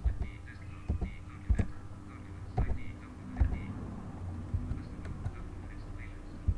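Computer keyboard keys pressed one at a time: about seven sharp clicks at irregular intervals over a low steady hum, as File Explorer is worked from the keyboard.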